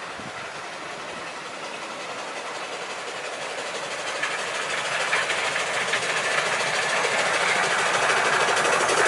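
Miniature 7¼ inch gauge train running on its track, a rapid rattling clatter of wheels and running gear that grows steadily louder as it approaches.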